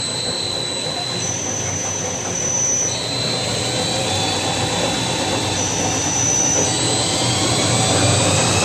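Centrum Force rug centrifuge spinning a soaking-wet rug to extract its water: a steady whir with high whining tones, slowly getting louder.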